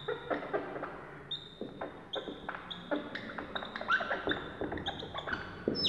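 Dry-erase marker writing on a whiteboard: a string of short strokes, many with a brief high squeak.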